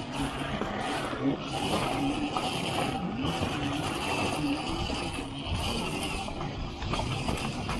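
Electric dirt bike riding off-road: the motor's whine rises and falls with the throttle over a steady rushing noise.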